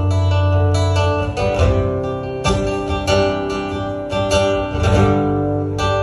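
Acoustic guitar strumming chords in an instrumental passage, with a strum about every half second and chord changes, played live through a Protech powered speaker box.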